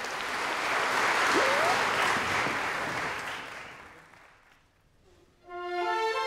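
Concert-hall audience applauding, the clapping fading away about four seconds in. After a brief hush, the symphony orchestra comes in near the end with held notes that build upward in steps.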